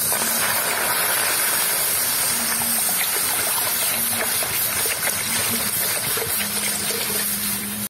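Water gushing steadily from a plastic jug into an iron kadai, splashing into the water pooling in the pan.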